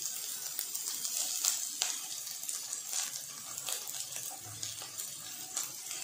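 Chopped garlic, green chilli and spring onion sizzling in oil in a stainless steel pan over a high gas flame: a steady hiss with scattered small crackles.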